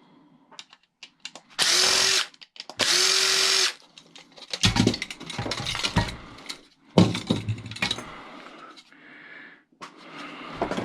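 Power drill-driver run in two short steady bursts, backing out screws while a small motor is taken apart for scrap, followed by knocks and clattering as loose metal parts are handled.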